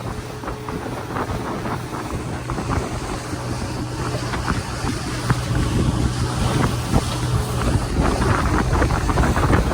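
Motorboat engine running steadily under wind buffeting the microphone, getting somewhat louder about halfway through.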